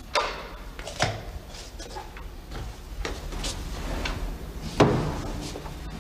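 A door being handled: three sharp clunks of the latch and door, one right at the start, one about a second later and the loudest near the end.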